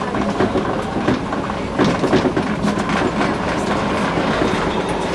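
Tram running along its track, heard from inside at the front: steady running noise with the wheels clattering over rail joints, including a cluster of knocks about two seconds in.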